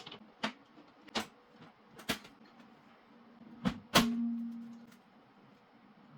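A series of sharp clicks and knocks from parts being handled, about six in four seconds; the last and loudest knock leaves a brief low ringing, like a metal panel being set down or fitted.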